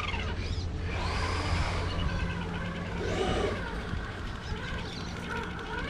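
Scale RC rock crawler's electric motor and gearbox whining as it creeps over rocks, the pitch rising and falling with the throttle.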